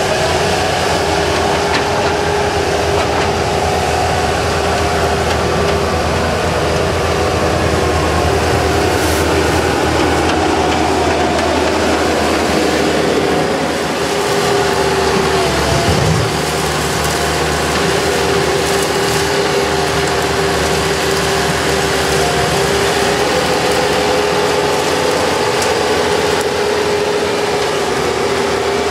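Bobcat 773 skid-steer loader's diesel engine running steadily under load with a steady whine, the note dipping and picking up again about halfway through.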